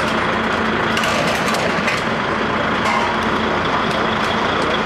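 A heavy recovery truck's engine running steadily, with a few faint knocks in the first couple of seconds.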